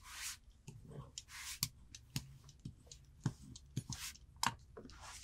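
A small hand tool rubbed firmly along folded cotton fabric on a cutting mat to press in a crease: short scraping swishes mixed with scattered sharp clicks and taps.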